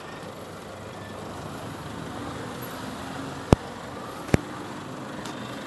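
Street traffic noise with a vehicle's engine running close by, as a steady rumble. Two sharp clicks about a second apart land past the middle.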